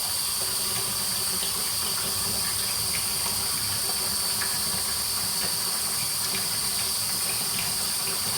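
Tap water running steadily into a sink as plastic vacuum parts are rinsed, with a few faint knocks and splashes.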